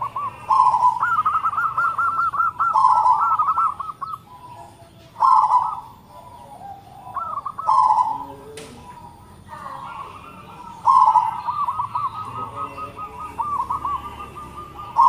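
Local-strain zebra dove (perkutut) cooing in a series of phrases, several of them drawn out into long rippling runs of quick notes.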